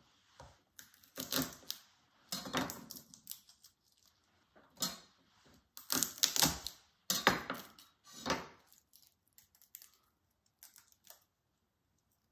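Garlic cloves being broken off, crushed and peeled on a wooden cutting board with a chef's knife: irregular knocks and clicks of the blade and cloves against the board. The knocks thin to faint clicks near the end.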